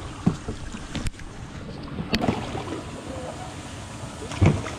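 Kayak paddling: water swishing with the paddle knocking on the plastic hull. There are two sharp knocks, about one and two seconds in, and a heavier thump near the end.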